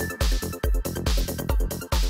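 Goa psytrance at 140 bpm: a steady four-on-the-floor kick drum, a little more than two beats a second, with bass and hissy hi-hats filling the gaps between beats.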